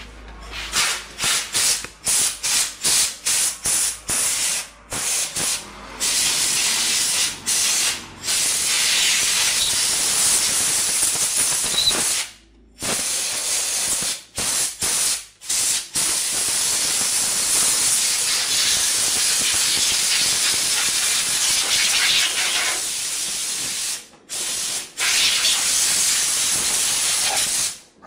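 Compressed-air blow gun hissing into the empty water pump opening of the engine block, blowing out dirt and old coolant before the new pump goes in. About a dozen short blasts in quick succession come first, then long continuous blasts with a few brief pauses.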